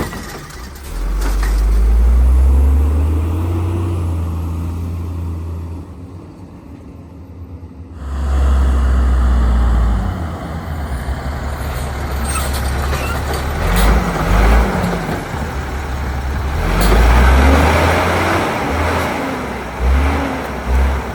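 Autocar WX Rapid Rail side-loading garbage truck pulling away hard three times, its engine revving up in rising surges between quieter stretches, with a hiss of air brakes.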